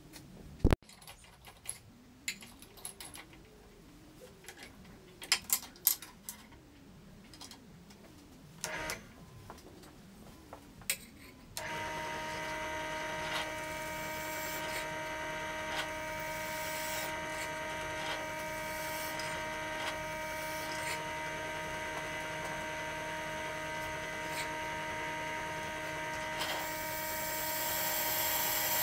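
Scattered clicks and knocks of parts being handled, then a benchtop drill press motor starts abruptly and runs with a steady hum. Near the end a hiss joins it as the bit cuts into a flat metal blank.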